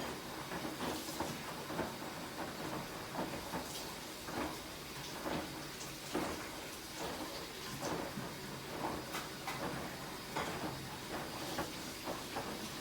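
High-efficiency washing machine running: a steady hiss with frequent irregular soft knocks and clunks from the turning drum and its load.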